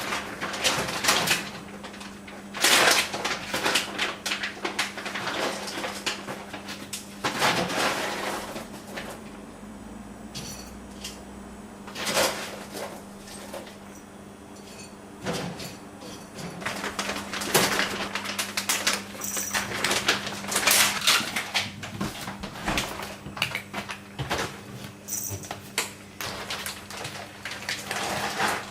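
Irregular clattering and knocking of cupboard doors and dishes, over a faint steady low hum.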